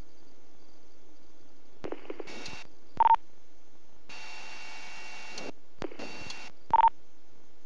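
Two-way police radio keyed without speech: short bursts of static hiss, two of them each followed by a brief, loud high beep, over a steady low hum.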